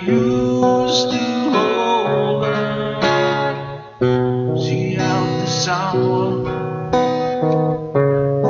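Acoustic guitar strummed, the chords changing every second or so with a short break just before the middle.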